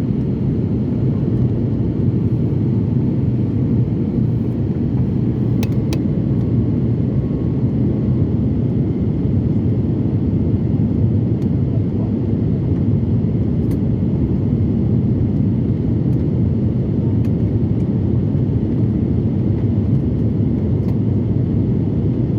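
Steady low rumble of an airliner heard from inside the passenger cabin: engine and airflow noise.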